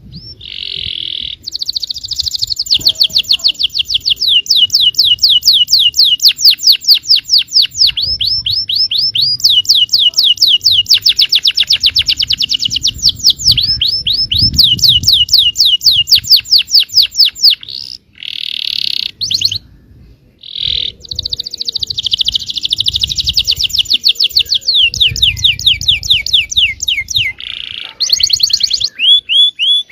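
Yellow domestic canary singing: long, rapid trills of repeated high notes, phrase after phrase, with two short breaks a little past the middle.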